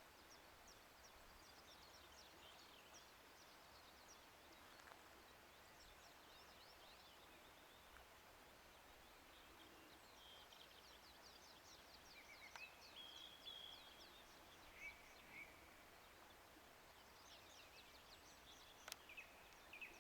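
Faint birdsong in mountain woodland: songbirds sing runs of quick, high chirps and trills in several bouts over a steady quiet hiss. There is one sharp click near the end.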